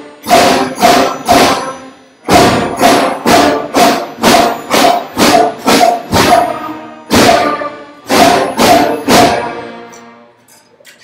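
Beginning school concert band playing a run of short, loud accented chords together, about two to three a second in groups with brief breaks. The last chord rings out and dies away about nine seconds in.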